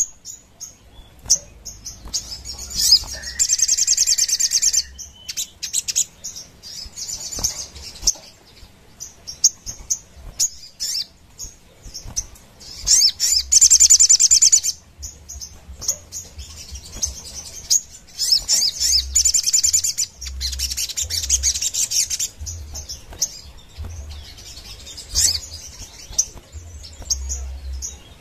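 Sogon, a caged sunbird, singing. It gives several fast, high-pitched rattling trills of two or three seconds each, with short chirps in between.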